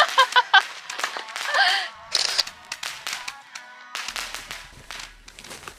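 A woman laughing, then from about two seconds in, background music with many sharp, clicky percussive hits.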